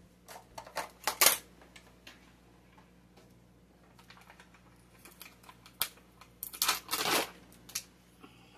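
Plastic packaging crinkling and clicking as a sour cream tub is handled: scattered short crackles, the sharpest about a second in, and a longer rustle near the end.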